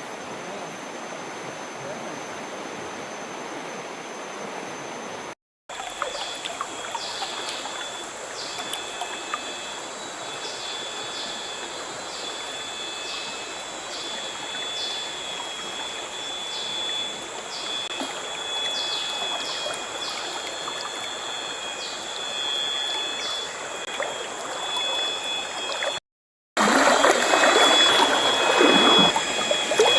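Mountain river running over rocks, a steady rush of water. In the middle stretch a high, steady whine with short repeated calls sits over the water, and after a brief dropout near the end the water is louder.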